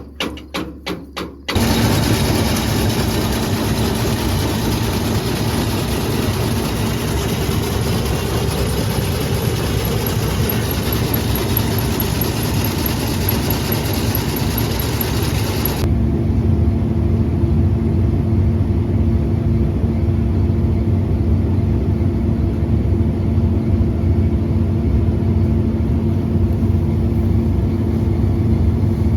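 Quick hammer strikes, about three a second, stop about a second and a half in and give way to a large harvest machine's engine running steadily. Past the middle the engine sound changes to a lower, steadier drone.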